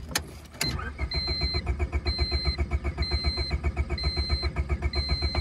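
Honda Civic's starter cranking the engine over without it catching: the cranking stops with a click just after the start and resumes about half a second in. A warning chime beeps about once a second alongside. The engine's oil has been drained and replaced with spray foam, and it won't fire.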